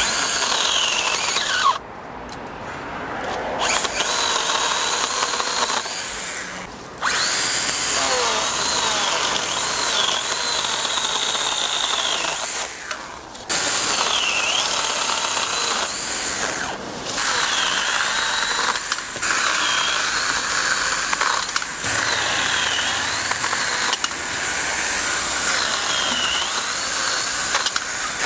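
Stihl GTA 26 battery pruning saw cutting through a tree branch in repeated trigger bursts, its high motor whine dipping in pitch each time the chain bites into the wood. The saw stops briefly several times between bursts.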